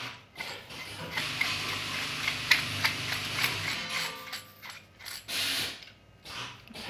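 Brass connector being screwed by hand onto the metal lance tube of a mortar spray gun: quick metallic clicks and scraping of the threads, with a short louder rub about five seconds in.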